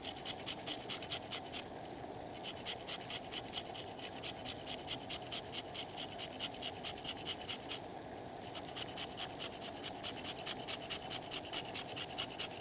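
Tonka bean being grated on a fine grater: quick, even scraping strokes, about five a second, with two short pauses.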